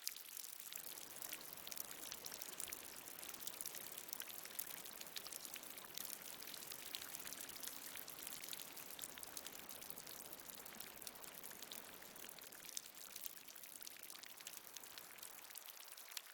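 Water dripping and trickling in a cave: a dense patter of drops over a steady wash of running water, fuller for most of the stretch and thinning near the end.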